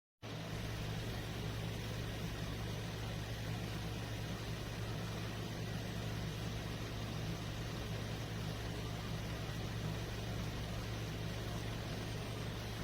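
Frida Baby 3-in-1 XL cool mist humidifier running: a steady low hum over an even hiss, starting suddenly just after the beginning.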